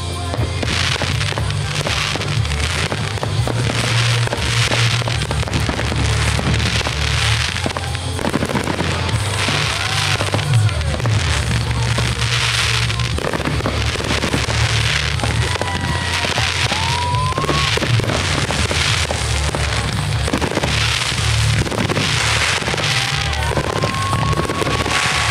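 Aerial fireworks launching and bursting in quick succession, with bangs and crackle, over background music with a heavy, steady bass line.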